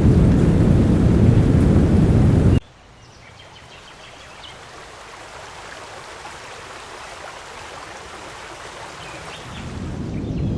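Heavy rain with a deep thunder rumble that cuts off abruptly about two and a half seconds in, leaving a much quieter rainforest ambience of steady hiss with faint bird chirps. Near the end the low rumble swells back in.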